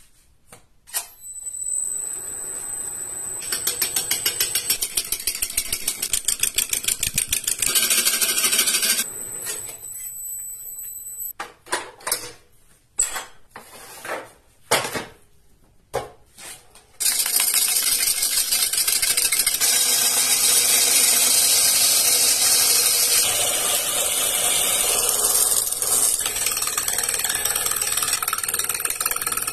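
Wood lathe spinning a juniper burl while a hand-held turning tool cuts into it: a loud, continuous rush of cutting from about halfway on. Before that there is a thin high whine with pulsing cuts, then a run of separate knocks.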